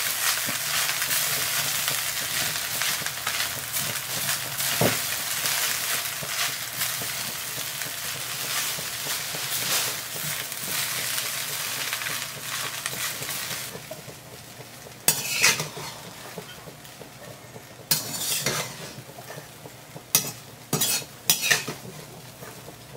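Cooked basmati rice being stirred and tossed in a hot metal kadai with ghee and cumin, with a steady sizzle and scraping of the spatula. About fourteen seconds in the sizzle falls away and a few sharp knocks of a utensil against the pan follow.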